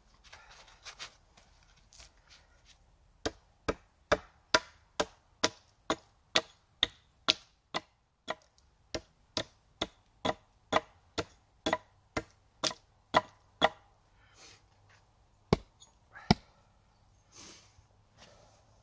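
Small hatchet chopping the end of a wooden pole held on a stump: a quick even run of about two dozen blows, roughly two a second, then a pause and two more blows.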